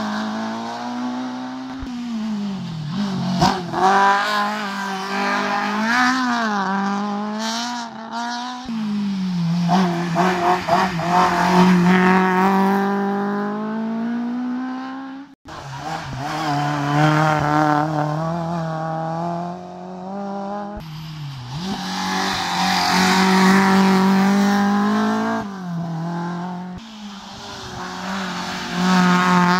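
Race car engines revved hard through a slalom chicane, one car after another. The engine note repeatedly climbs and falls as each car accelerates, lifts and shifts gears. The sound cuts out briefly about halfway through as one car gives way to the next.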